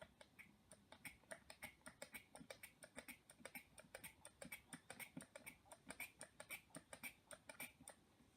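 Faint, rapid clicking, about four to five short clicks a second: a trigger spray bottle of isopropyl alcohol being pumped over and over to refill a small lid.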